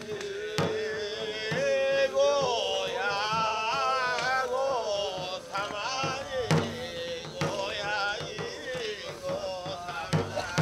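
Bitchū kagura song: a single voice chants a long, wavering melodic line, punctuated by a few sharp strikes on a taiko drum.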